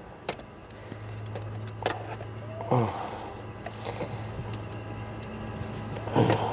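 Scattered light clicks and clinks of a socket and ratchet being fitted by feel onto a starter mounting bolt, over a steady low hum.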